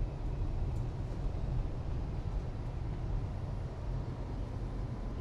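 New York City subway train, a steady low rumble with a hiss of noise over it.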